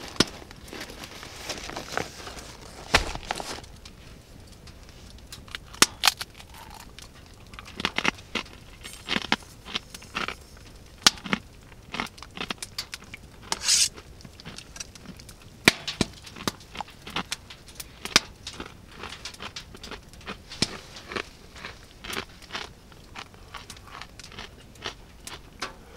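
Plastic packet of croutons crinkling and rustling, with many scattered sharp clicks; one louder brief rustle about halfway through.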